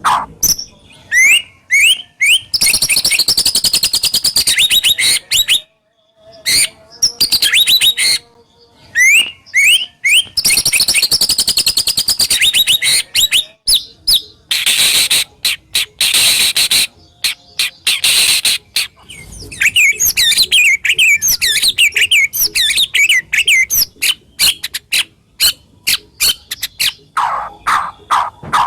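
White-rumped shama (murai batu) singing a long, varied song: quick runs of sharp sweeping notes broken by harsh, high rattling phrases and brief pauses. These are the harsh, sharp 'tembakan' phrases prized in song-training recordings.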